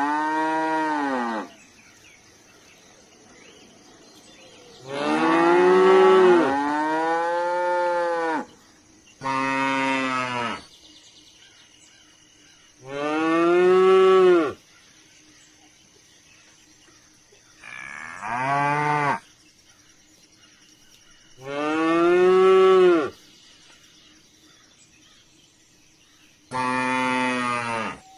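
Cow mooing: about seven long, drawn-out moos, each lasting one to three seconds and spaced a few seconds apart. Each moo rises in pitch and then falls away.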